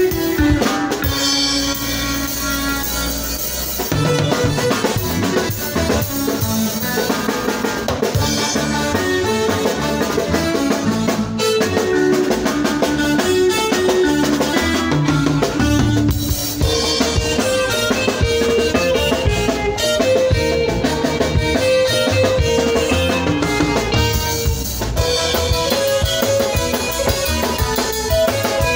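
Live band playing a seben, the fast dance section of Congolese rumba/soukous: drum kit with busy snare, bass drum and cymbals under repeating electric guitar lead lines, with bass and keyboards. The full band comes in harder about four seconds in.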